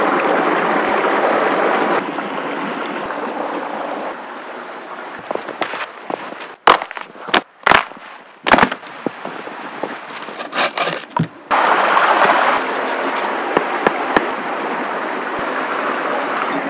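Dead branches cracking and snapping as they are broken off a tree by hand: a run of sharp cracks over about five seconds in the middle. Steady rushing noise comes before and after them.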